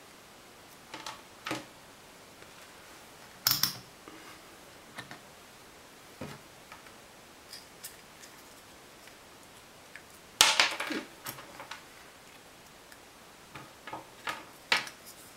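Irregular clicks, taps and small rattles of test leads and clips being handled, with the loudest cluster about ten seconds in.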